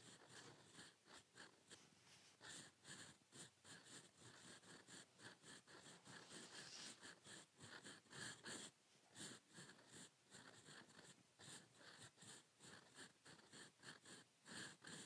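Faint scratching of a steel fountain pen nib on paper, writing cursive in quick, irregular short strokes, several a second.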